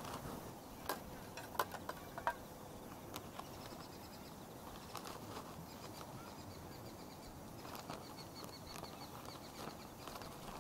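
An insect trilling in rapid, evenly spaced high pulses, in two runs, the second longer. A few sharp clicks come in the first couple of seconds.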